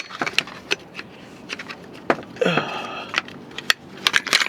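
Scattered metal clicks and knocks of a tire change, with a short falling voice-like sound, such as a grunt or groan, about two seconds in.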